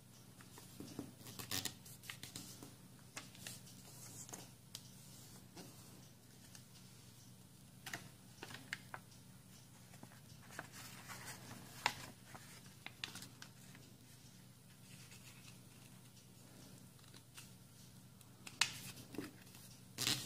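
A sheet of origami paper being folded and creased by hand on a wooden table: irregular soft rustles and short crisp snaps of paper, the sharpest ones near the end.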